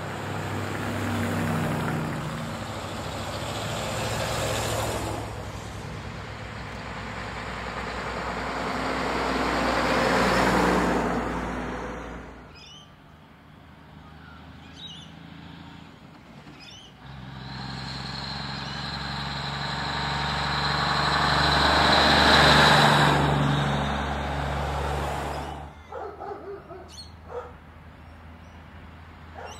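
Vintage trucks and cars passing on the road in two waves, engine and tyre noise building, peaking and fading: the first peaks about ten seconds in, the second, louder, peaks around twenty-two seconds in and drops away suddenly a few seconds later. A few faint clicks sound in the quieter gap between them.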